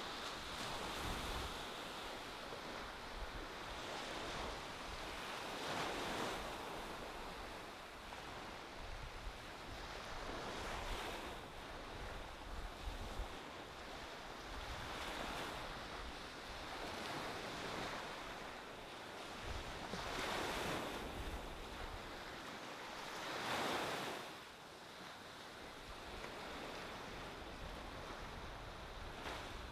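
Ocean surf breaking and washing up a sand beach, the wash swelling and fading every few seconds.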